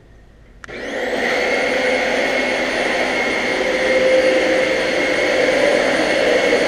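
Vacuum cleaner switched on about half a second in, its motor whining up quickly in pitch and then running loud and steady.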